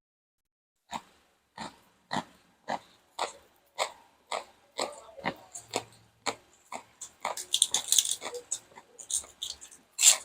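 Pestle pounding green papaya and long beans in a mortar for papaya salad, sharp knocks at about two a second starting about a second in, turning denser and busier in the last few seconds.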